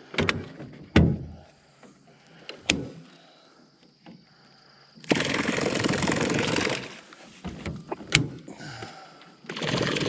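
Knocks and bumps of a person shifting about in a small jon boat, a few sharp hits on the hull, with two spells of loud rushing noise of about a second and a half each in the second half.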